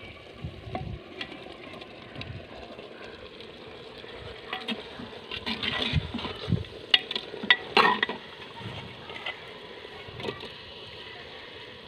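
A long metal ladle stirring raw chicken pieces into masala in a clay handi, with soft scraping and a few sharp clinks of the ladle against the pot, mostly a little past the middle.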